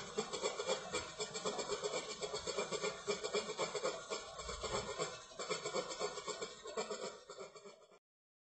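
Mercedes-Benz A150's A/C compressor making a rough, fast, rhythmic rasping noise with the engine running. The clutchless, solenoid-valve-controlled compressor has a broken front hub. The noise stops abruptly near the end.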